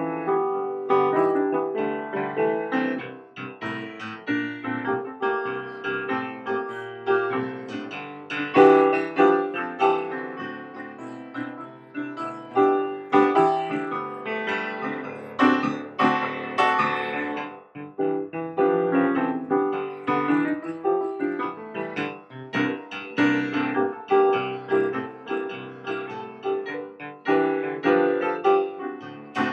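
Solo piano music, a run of struck notes and chords.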